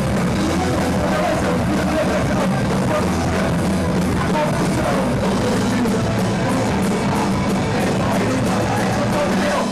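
Live punk rock band playing at full volume, with drums, guitars and singing.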